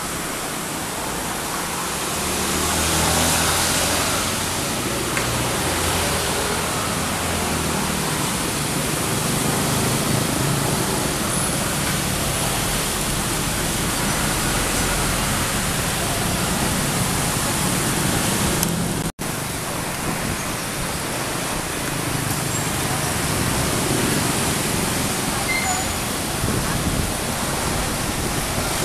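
Komatsu long-arm hydraulic excavator's diesel engine running as it digs, its low note shifting with the work, under a loud steady hiss. The sound drops out for an instant about two-thirds of the way through.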